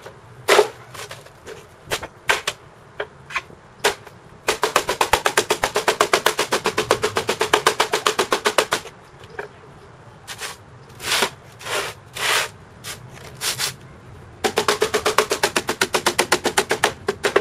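Hammer blows straightening a bent aluminum piece flat. Separate blows give way to two long runs of rapid tapping at about ten blows a second, one near the middle and one near the end, with scattered blows between.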